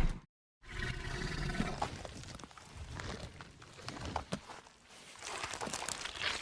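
Tyrannosaurus creature sound effects: a roar cuts off right at the start, then after a short silence comes a quieter stretch of low rumbling with scattered clicks and crackles.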